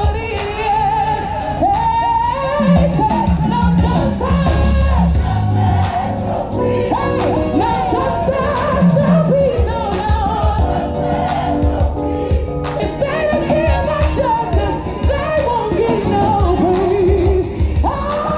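Gospel choir singing with a band, heavy bass notes underneath.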